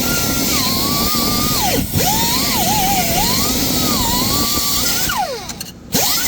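High-speed cutoff tool cutting through seized catalytic converter flange bolts, its whine rising and dropping in pitch as the wheel bogs under load. The trigger is released briefly about two seconds in, and again about five seconds in, each time with a falling spin-down whine before the tool is run up again.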